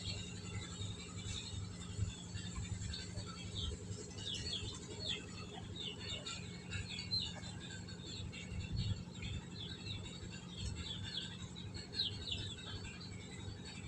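Many short, high-pitched animal chirps in quick succession, each falling slightly in pitch, over a steady low hum.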